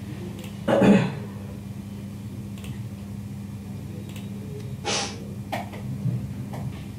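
Steady low hum from the recording setup, with a brief voiced sound from the narrator about a second in and a short breath-like noise about five seconds in.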